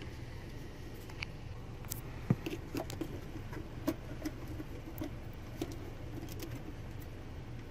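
Plastic wiring connectors and harness clicking and rattling as they are handled and unplugged, with one sharper click a little over two seconds in, over a steady low hum.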